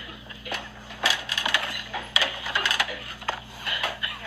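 Packages being pulled from a store shelf and handled: irregular crinkling and rustling of packaging, with sharp clicks and knocks.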